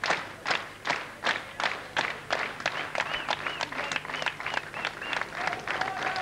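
Boxing crowd clapping together in a steady rhythm, nearly three claps a second, with voices calling out over it in the second half.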